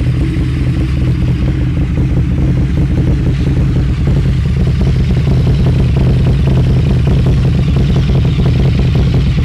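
Harley-Davidson V-Rod Night Rod's liquid-cooled Revolution V-twin idling steadily through a custom stainless 2-into-1 exhaust. It gets slightly louder about four seconds in.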